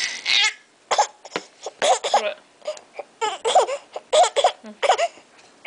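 Baby sobbing in short, broken cries, about ten choppy bursts rather than one long wail.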